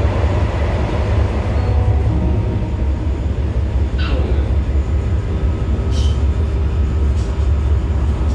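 S18 Forchbahn train running, heard from the driver's cab: a steady low rumble. The louder track noise thins out about two seconds in, as the train leaves a tunnel. A couple of short high squeaks come about four and six seconds in.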